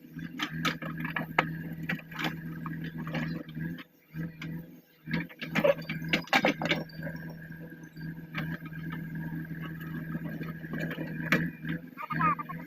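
A JCB 3DX backhoe loader's diesel engine running steadily, with irregular knocks and clatter throughout, loudest in a cluster about six seconds in.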